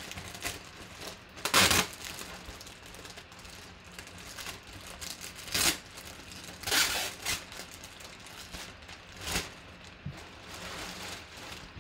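Clear plastic bag crinkling and rustling as a folded hockey jersey is worked out of it by hand, in several short bursts, the loudest about a second and a half in.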